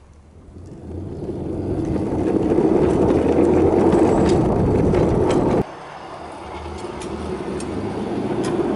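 Wheels of a 5-inch gauge garden-railway car rolling on steel rails, heard from aboard the moving car. The rumble builds as it gathers speed and cuts off abruptly a little past halfway. A rail rumble then builds again as a small railbus approaches along the track, with faint clicks near the end.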